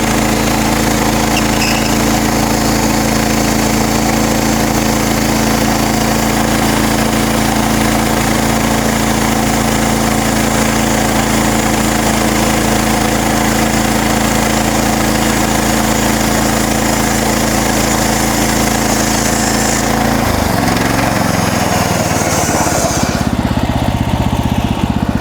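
MechMaxx SM32 band sawmill running under load, its engine steady while the band blade saws through a cherry log. About twenty seconds in, the cutting hiss stops and the engine drops in pitch as the mill slows.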